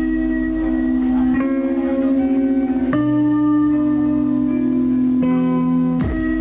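Music from a Native Instruments Maschine beat routine: a held, guitar-like sampled chord progression, with a new chord coming in about every one to two seconds.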